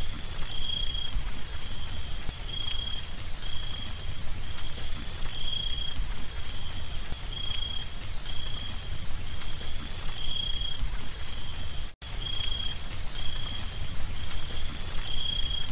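Steady rain falling, with a high thin chirp repeating about once a second over it. The sound cuts out for an instant about twelve seconds in, then carries on.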